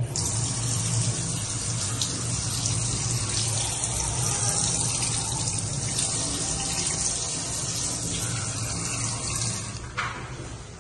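Water from a newly plumbed kitchen mixer tap with a flexible spring-neck spout running steadily into a stainless steel sink, then cut off near the end.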